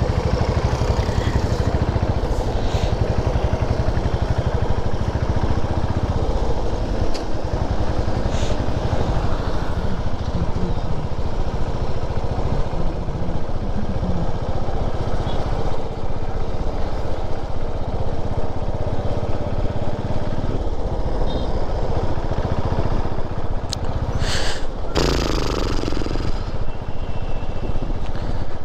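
Motorcycle engine running steadily as the bike is ridden along a road, with road and wind noise. A brief louder hiss comes near the end.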